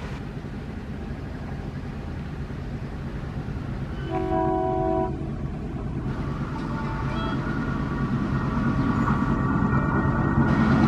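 WDM-3A diesel-electric locomotive (ALCO-type V16 engine) approaching with a passenger train, its engine drone growing steadily louder as it nears. A single horn blast of about a second sounds midway.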